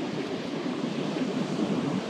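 Steady wind buffeting the microphone over the wash of surf on the shore.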